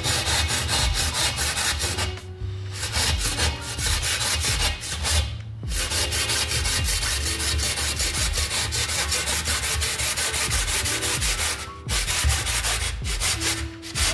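Fine-tooth hand saw cutting through a white moulding strip in quick, even back-and-forth strokes, with a few brief pauses between runs of strokes.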